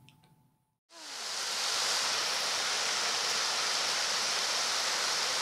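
Shallow river rushing over rocks and small rapids: a steady, even rush of water that fades in about a second in.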